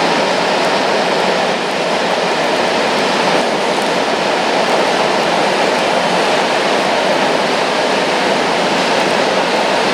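Freight train of coal wagons rolling through the station: a steady, loud noise of wheels on rail with no clear beat.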